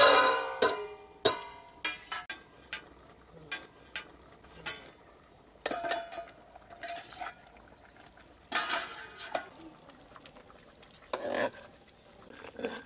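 Steel plate lid and metal spoon clanking and clinking against a metal cooking pot while thick khichuri is stirred. One loud ringing clang right at the start, then scattered clinks and a few longer ringing strikes.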